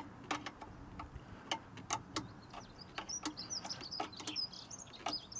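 Irregular clicks and taps from a tool working the nuts of a battery tie-down clamp, with small birds chirping in the background from about three seconds in.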